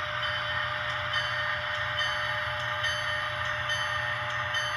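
ESU LokSound V5 sound decoder in an HO Atlas AEM7 electric locomotive model playing its running sound through the model's small speaker: a steady whine over a hiss, with light ticks about twice a second.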